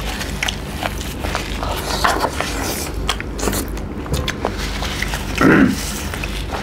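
Close-up eating sounds: chewing and biting into fried chicken and rice eaten by hand, with many small wet mouth clicks and smacks. One brief louder sound comes about five and a half seconds in.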